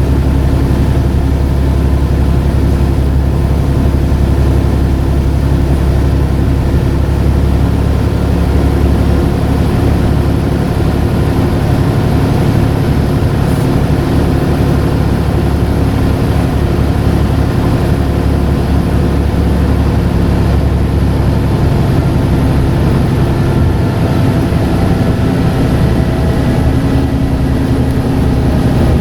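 Scania N94UD double-decker bus's diesel engine running steadily under way, a loud, even low engine note with no gear changes or sudden events standing out.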